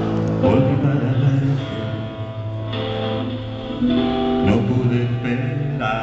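Live blues band playing an instrumental passage: amplified electric guitars with held notes over bass and drums.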